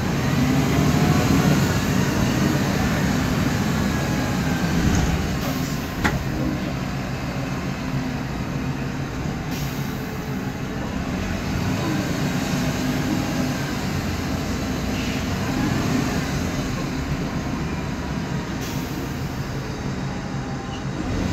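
MAN Lion's Classic city bus under way, heard inside the cabin: a steady low drone from the driveline with a faint whine that rises and falls, from the noisy differential.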